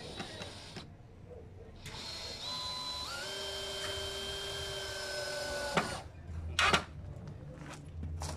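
Cordless drill running for about four seconds, its motor whine stepping up in pitch twice as it speeds up, then stopping with a click. A sharp knock follows about a second later.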